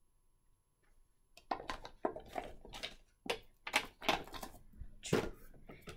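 Rummaging through a box of nail-product bottles: a string of knocks, clicks and rustles starting about a second and a half in, with the sharpest knocks near the end.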